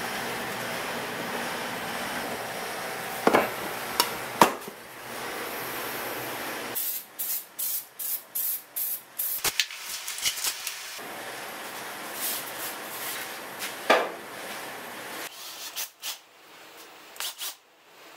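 Aerosol spray adhesive being sprayed onto the back of a paper pattern. It comes as a run of short hissing spurts about two a second, then a longer hiss, with a few sharp clicks among them.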